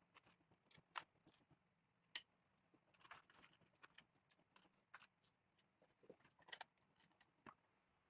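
Small metal washers and screws clinking against each other and the plastic compartments of a hardware organiser box as fingers rummage through them: faint, irregular clicks, with busier clusters about three seconds in and again around six and a half seconds.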